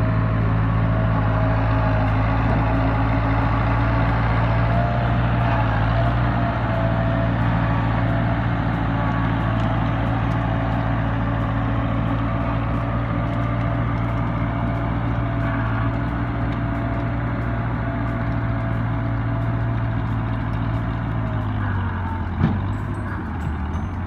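Backhoe diesel engine running steadily at working speed. Near the end the engine speed drops a little, and there is a single sharp clunk.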